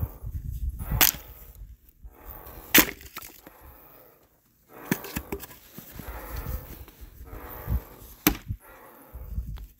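Splitting axe chopping into willow firewood rounds: three sharp blows, about a second in, just under three seconds in, and near the end, with softer rustling between them.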